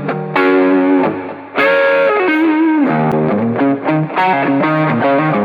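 Electric guitar played through an overdrive pedal with a little delay: two ringing chords, then short, rhythmic chords from about halfway through.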